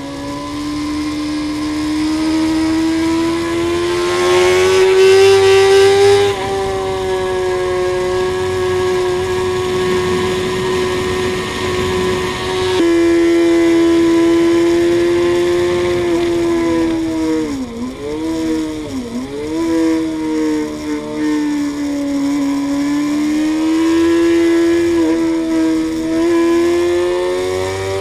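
Suzuki GSX-R inline-four sport bike engine on track. It revs up through the gears with a gear change about six seconds in, holds high revs, then twice the revs dip sharply and come back before climbing again near the end. Wind rush over the bike runs underneath.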